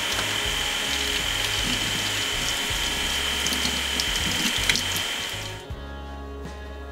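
Kitchen faucet water running into a sink, a steady rush with a high whistle and a few light clicks, cutting off abruptly about five and a half seconds in. Background music plays underneath.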